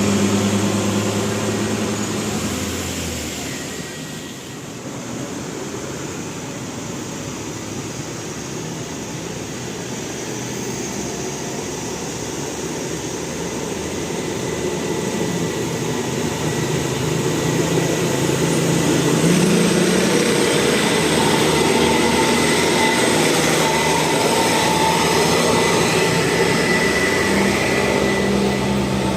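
Large buses driving past: engine and road noise that fades a few seconds in, then builds again and stays loud through the second half.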